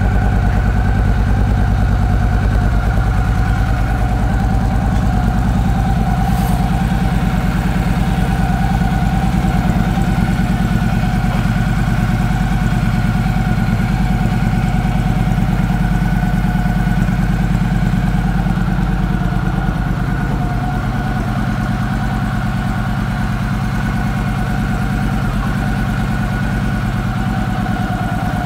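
2014 Victory Cross Country's V-twin engine idling steadily through aftermarket Freedom Performance exhaust pipes.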